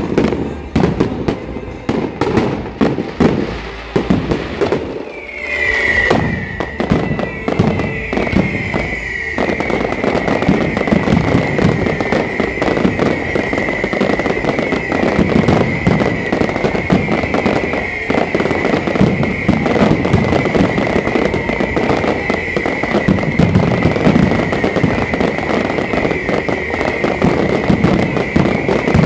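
Aerial fireworks display with rapid, overlapping bangs and crackles of bursting shells, thickening into a dense continuous barrage about nine seconds in. A steady high whistle-like tone joins about five seconds in and holds to the end.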